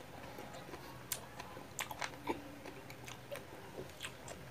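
Close-miked biting and chewing of firm unripe mango slices, with irregular crisp crunches and wet mouth clicks.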